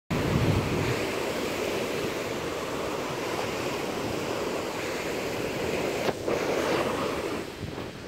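Ocean surf breaking and washing up a sandy shore as a steady rush of waves, with wind buffeting the microphone, strongest in the first second.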